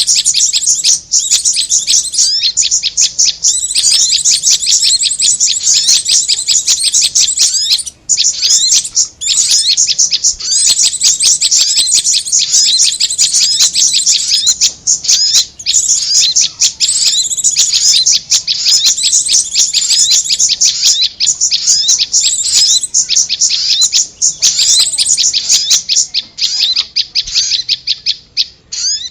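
Bird-lure recording of prinias (prenjak) chattering: rapid, continuous high-pitched chirps with a few short breaks, thinning out near the end.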